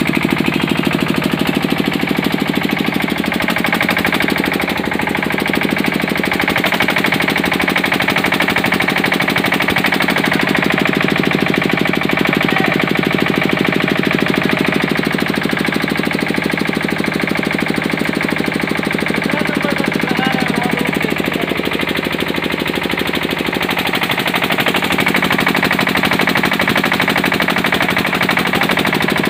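New Swaraj 14 bhp water-cooled diesel engine running a 10 kVA generator set, going steadily with a rapid, even firing beat.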